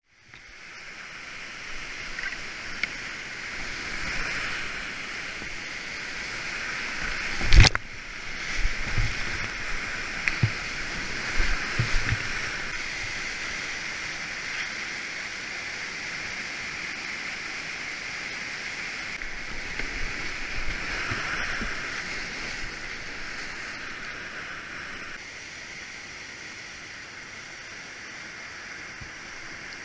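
Whitewater rapids on a steep creek, a steady rushing hiss of water. A single loud, sharp knock comes about seven and a half seconds in, followed by a few dull thumps over the next few seconds.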